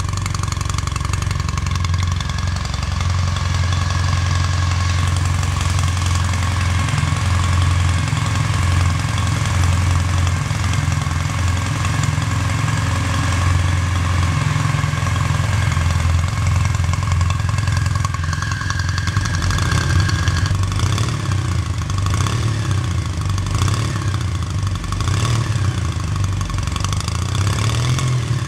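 Kawasaki W800's 773cc air-cooled vertical-twin engine idling steadily through its exhaust, with a slightly uneven, rising-and-falling note over the last several seconds.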